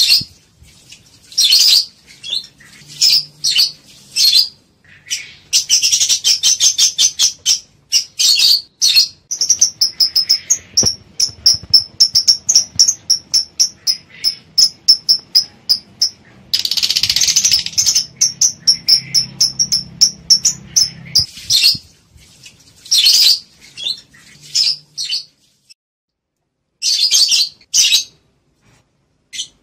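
Lovebirds calling with sharp, high chirps: a fast, even run of chirps of about five a second, broken by harsher rasping calls and short pauses. The calls are presented as those of lovebirds in breeding mood, ready to mate.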